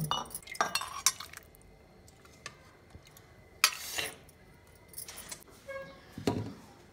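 Metal ladle clinking against a steel pot and bowl while curry is ladled out: a handful of separate sharp clinks, the loudest a little past the middle.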